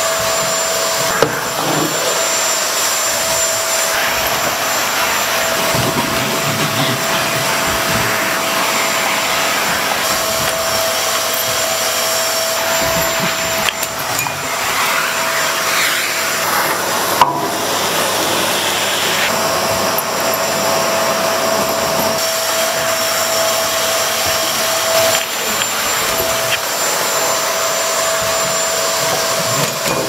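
Upright vacuum cleaner running steadily, a loud motor noise with a constant high whine, while a dog attacks the cleaner head. Two sharp knocks stand out, about a second in and again about halfway through.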